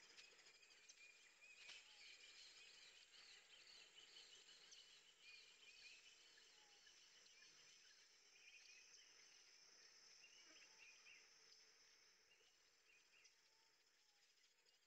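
Near silence, with faint rustling of fabric being scrunched and handled.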